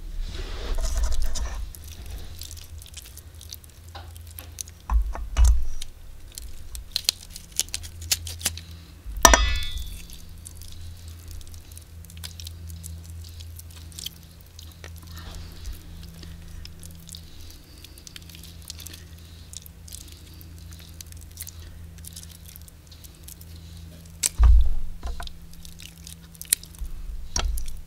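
Kitchen shears snipping through raw chicken wing meat and connective tissue while the wet wings are handled, cutting the meat loose from the bone. The sound is scattered soft snips, squelches and clicks, with a few louder knocks, one of them followed by a brief ring about nine seconds in.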